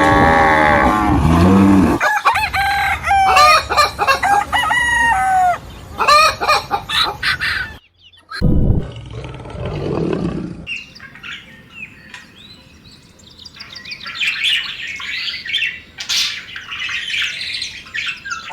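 A sequence of short farm-animal clips: a low animal call in the first couple of seconds, then chickens clucking and a rooster crowing, cut off suddenly at about eight seconds. After that come fainter chirping bird calls.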